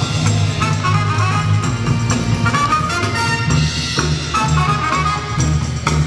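Loud dance music with brass and a steady drum beat, the DJ's track for a breaking battle.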